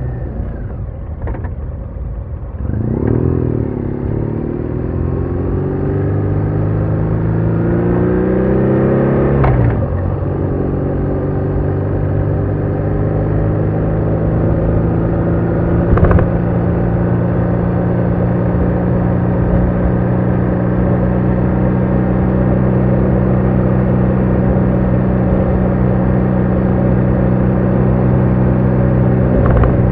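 BMW R1200R's flat-twin boxer engine under way. After a short easing off, it pulls up through the revs for about six seconds, drops as a gear is shifted up, then holds a steady cruising drone. A few brief sharp knocks sound over it.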